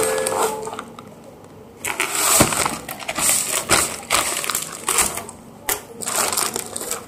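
Clear plastic parcel packaging crinkling and crackling as hands handle and open it, in uneven bursts with short lulls.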